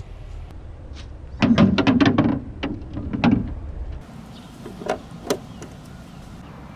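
Small plastic ball hitting and clattering inside a toy plastic garage in a quick run of knocks for about two seconds. Later, two sharp plastic clicks as a garage door snaps shut.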